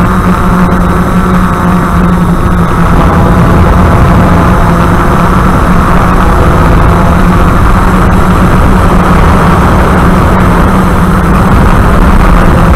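DJI F550 hexacopter's electric motors and propellers running steadily, loud and close through the onboard camera's microphone: a constant drone with a steady hum over a rushing noise.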